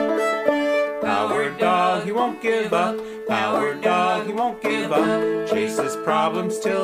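The episode's homemade theme song in D, played on plucked strings, with a melody line that bends in pitch coming in about a second in.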